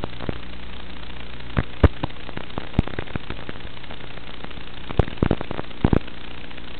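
Steady electrical hum and hiss from a recorder channel carrying no real sound, broken by sharp crackles and pops, a few about two seconds in and another cluster about five to six seconds in.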